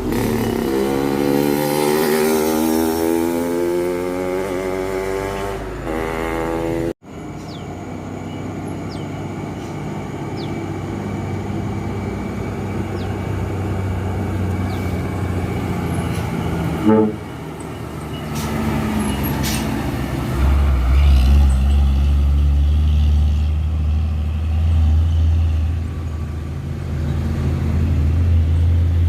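Road traffic: a vehicle engine revving up with steadily rising pitch for about six seconds, then a sudden cut to steadier passing-traffic noise. From about twenty seconds in, a deep engine drone sets in and holds.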